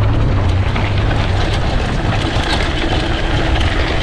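Riding noise from a handlebar-mounted action camera on a mountain bike: wind buffeting the microphone in a steady low rumble, over knobby tyres rolling on a dry, loose dirt track with frequent small clicks and rattles.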